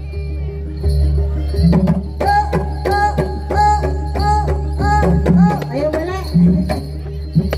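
Traditional Javanese folk-dance music played live: hand drums beating in quick strokes over a steady low drone, with a short arching melodic phrase repeated about twice a second in the middle stretch.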